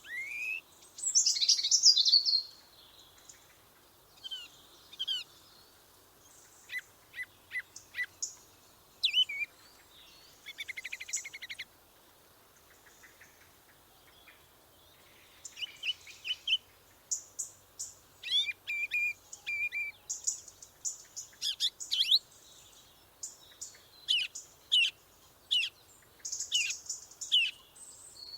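Small birds chirping and calling: short rising chirps, a fast trill about ten seconds in, and dense high buzzy notes through the second half.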